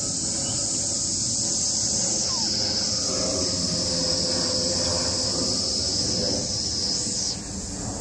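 Steady, high-pitched insect drone that cuts off about seven seconds in, over a low background rumble.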